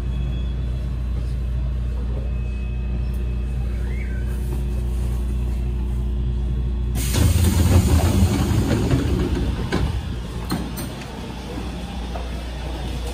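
Underground metro train's steady low hum while standing at a platform, then about seven seconds in the doors open with a sudden loud hiss and clatter that fades over a few seconds.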